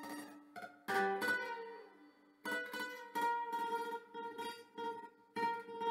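Acoustic guitar played fingerstyle: plucked notes and chords ringing out, with a short lull about two seconds in, then a run of repeated plucked notes.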